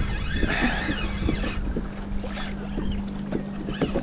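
Water slapping and knocking against a plastic kayak hull, with wind on the microphone, while a big hooked fish pulls the kayak. A brief high wavering whine comes in the first second and a half.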